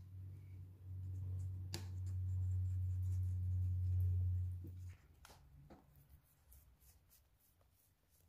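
A low steady hum that cuts off suddenly about five seconds in, with a few light clicks and taps as fingers work the pastry edge against a metal springform pan; faint small ticks follow.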